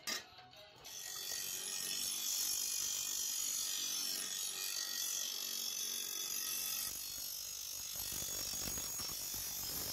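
A hammer blow on a steel plough blade right at the start, then from about a second in a bench grinder grinding the edge of the steel blade: a steady, high rasping grind.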